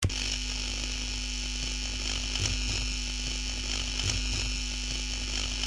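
Steady electrical hum and buzz with a hiss over it, cutting off abruptly near the end.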